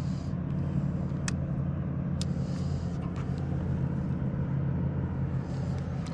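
A boat motor running steadily with a low, even hum, with two sharp clicks about a second and two seconds in.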